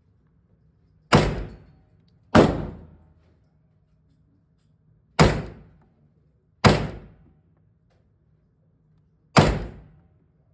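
Five single gunshots fired at an uneven pace, each loud crack followed by a short echoing tail.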